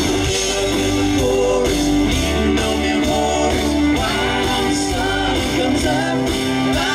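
Live country-rock band playing an amplified passage: electric guitar, bass and a drum kit keeping a steady beat.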